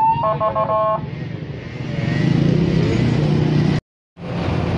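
Electronic siren of an emergency vehicle: a rising wail that switches to a fast two-tone warble and stops about a second in. Street noise with running engines follows, and the sound cuts out for a moment near the end.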